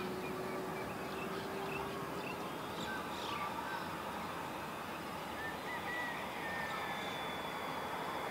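Birds chirping in short, scattered calls over a steady, even rushing background.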